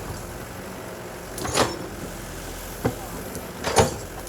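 Heavy construction machinery engine running steadily, with three short knocks or clanks.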